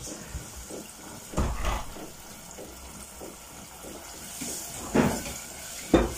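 Dry tarhana being poured from a plastic container into a small steel pot and stirred with a spoon: soft scraping and rattling, with a few louder knocks of the spoon against the pot, about a second and a half in, at five seconds and just before the end.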